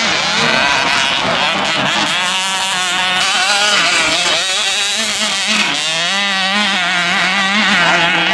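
Small motocross bike engines revving, their pitch climbing and dropping as the throttles are worked.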